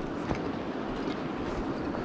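Steady rushing of a shallow, rocky river, with jacket fabric brushing against the microphone and a couple of faint knocks.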